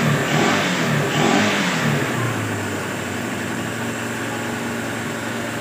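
Flood-soaked motorcycle engine running, revved a few times and then settling to a steady idle about two seconds in, as water is driven out of it.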